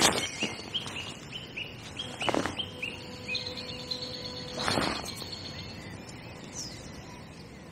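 A small songbird singing a quick run of about ten short repeated notes, which stops about three seconds in, then a couple of higher chirps near the end. Two brief knocks close by, about two and four and a half seconds in, are the loudest sounds.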